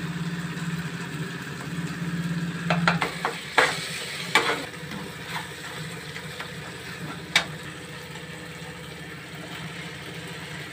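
Masala sizzling as it fries in a steel kadhai, with a steel spatula scraping and knocking against the pan several times about three to four seconds in and once more near seven seconds. A steady low hum runs underneath at first and stops about three seconds in.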